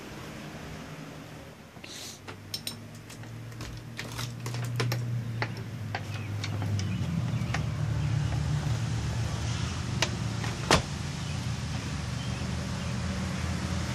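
A phone handled and carried, with scattered clicks and knocks on the microphone, the sharpest about eleven seconds in. From about halfway, the low steady hum of an idling vehicle engine comes in underneath and grows louder.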